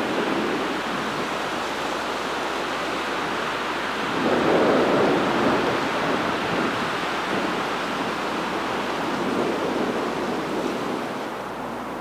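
Wind rushing steadily, with a stronger gust swelling about four seconds in and easing off after a couple of seconds.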